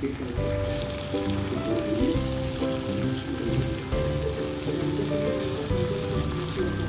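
Fried eggs in chili sambal sizzling in a wok while a plastic spatula stirs them, under background music with a stepping melody.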